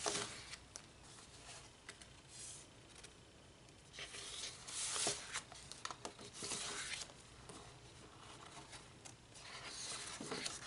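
Sheets of cardstock and foil paper sliding over one another and rustling as they are handled and fanned out, in soft bursts every few seconds.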